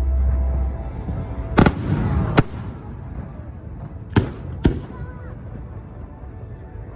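Aerial fireworks shells bursting: a deep low rumble in the first second, then four sharp bangs in two pairs, the first pair about a second and a half in and the second about four seconds in.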